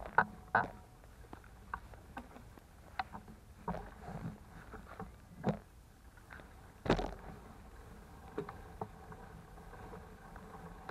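Child's bike rattling and knocking as it rolls over a bumpy dirt path, heard from a camera mounted on it: irregular sharp clicks and jolts, the loudest about seven seconds in.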